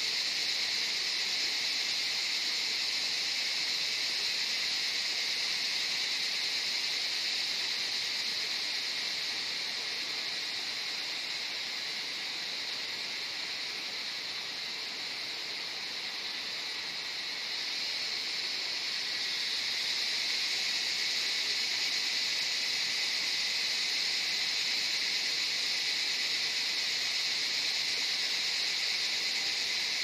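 Cicadas calling in a continuous high-pitched drone. The chorus softens about a third of the way through and swells back up a little past halfway.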